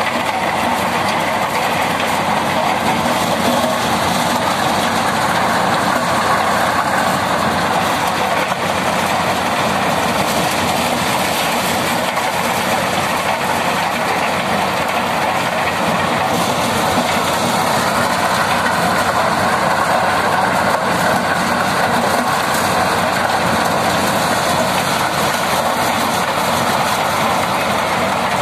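Maize thresher shelling corn, driven by a Swaraj 744 FE tractor's three-cylinder diesel engine: a loud, steady mechanical din of the engine and threshing drum running together, with shelled kernels pouring from the spout.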